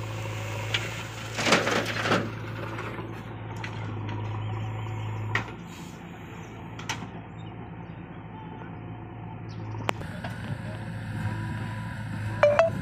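Diesel engines of tractors and a JCB backhoe loader running with a steady low hum, with scattered knocks and clanks; about five seconds in the hum changes.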